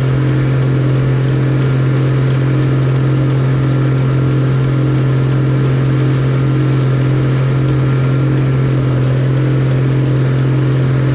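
Combine harvester running at a steady working speed: a loud, even low machine hum with a faint regular pulse about twice a second.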